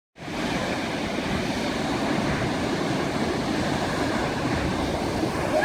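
Large ocean waves breaking against a rock jetty: a steady rush of surf and churning water, swelling slightly near the end.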